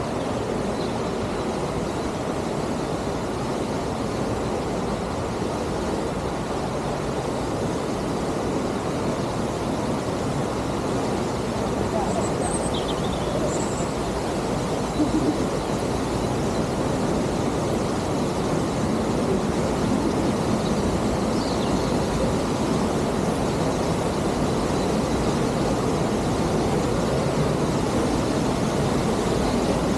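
Waterfall's steady rush of falling water, an even noise that grows slightly louder in the second half. A few faint high chirps sound over it around the middle.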